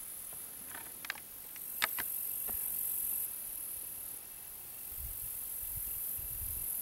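Open wheat-field ambience: a steady high-pitched insect buzz with a few light clicks early on, and wind gusting on the microphone in the second half.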